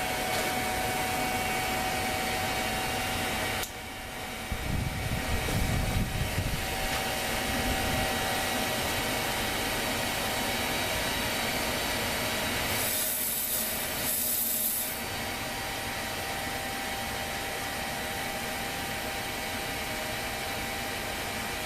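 Propane-fired foundry furnace burner running with its blower fan on low speed: a steady rushing noise with a faint whine. A low rumble swells for a few seconds near the start, and a high hiss comes in briefly about two thirds of the way through.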